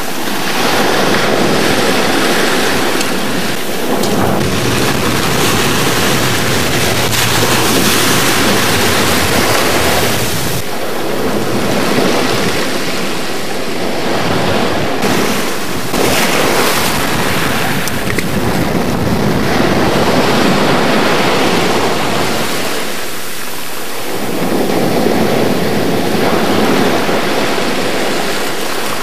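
Sea surf breaking and washing up a sand-and-shingle beach, mixed with wind buffeting the microphone; the rushing noise swells and eases every few seconds.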